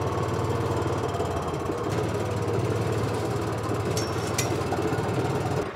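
Kawasaki utility vehicle's engine running with a steady, low, pulsing drone as it drives off down a dirt trail. Two brief high squeaks sound about four seconds in.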